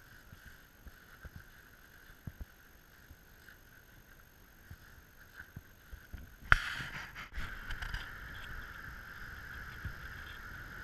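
Faint footsteps through grass over a steady high hum. About two-thirds of the way in, a sudden cut brings in the louder, even rush of a small cascading stream.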